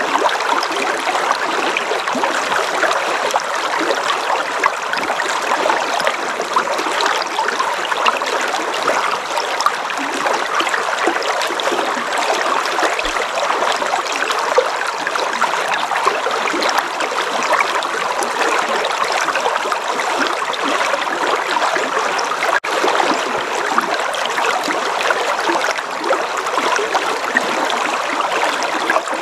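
River water flowing, a steady even rush without pauses.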